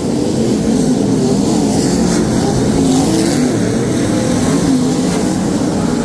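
A field of sprint cars racing on a dirt oval: several V8 engines running at once, their pitches wavering up and down over one another.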